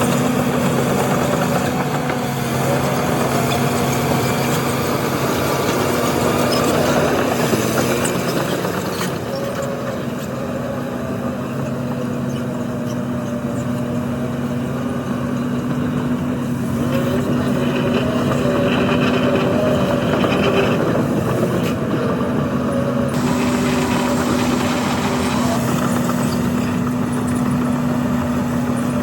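Diesel engines of heavy earthmoving machinery running steadily with a constant low hum, the pitch shifting a little at times as the machines work.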